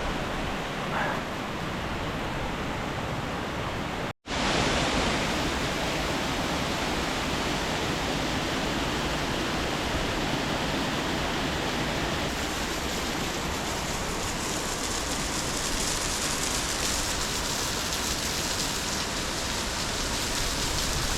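Waterfall water rushing steadily, with a brief cut-out about four seconds in.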